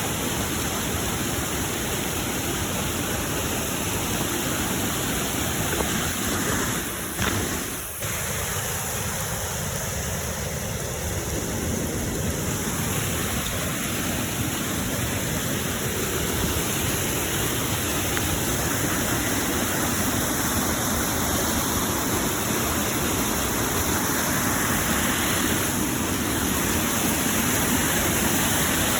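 Fast-flowing floodwater rushing steadily, as a flooded creek or water pouring over a road does. The level dips briefly, with a couple of faint clicks, about seven to eight seconds in.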